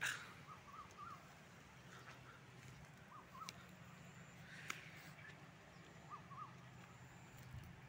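Faint bird calls: short arched notes in groups of two or three, repeated every few seconds, over a low steady hum.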